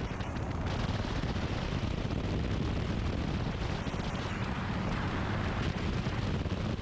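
Two-stroke snowmobile engine of an Avid MKIV homebuilt plane running hard on the takeoff run, heard from a tail-mounted action camera as a steady, rough roar with propwash and wind buffeting the microphone.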